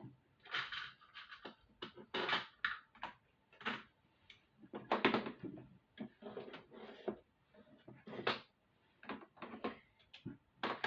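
Irregular clicks and rattles of small plastic bead and jump-ring containers and beading supplies being handled and searched through on a work table.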